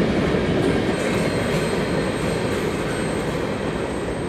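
Freight cars (tank cars and a boxcar) rolling past on the rails: a steady rumble and rattle of steel wheels on track, easing off slightly near the end as the train moves away.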